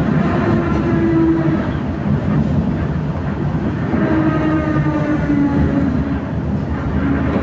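Electric tram running between stops: a steady rolling rumble with a whine of several tones that drift slightly in pitch.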